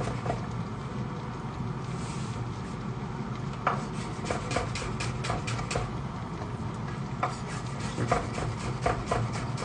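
Chef's knife chopping shallots on a bamboo cutting board: quick runs of sharp taps, several a second, thinning out for a moment about two seconds in, over a steady low hum.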